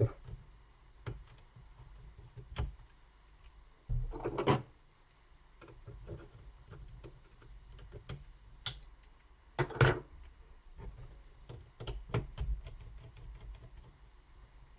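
Small clicks, taps and short scrapes from handling the internals of an open laptop with a small screwdriver while taking out its Wi-Fi adapter, with two louder brief rustling knocks about four and ten seconds in and a run of light ticks near the end.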